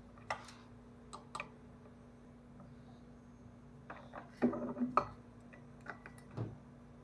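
Scattered metal clicks and clinks from a ratchet and star socket on a driveshaft coupler bolt, with a short burst of clattering about four and a half seconds in.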